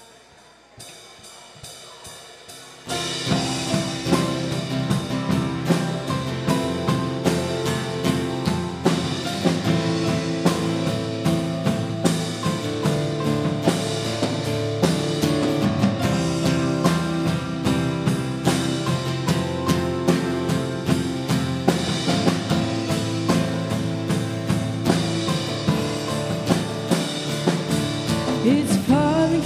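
Worship band playing an instrumental intro with a drum kit. Light cymbal ticks come first, the full band enters suddenly about three seconds in with a steady drum beat, and a voice begins to sing right at the end.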